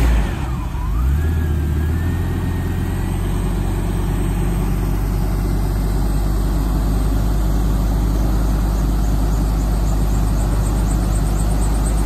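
Chevrolet 454 big-block V8 of an Orchard Rite wind machine starting on a remote autostart command and settling into a steady run. A whine dips and then climbs over the first few seconds, and after that the engine runs with a steady low hum.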